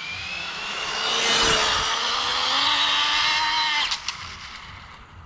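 Arrma Limitless RC speed-run car at speed: a high-pitched whine from its brushless electric motor and drivetrain that builds over the first second and a half, holds, then drops off at about four seconds and fades away.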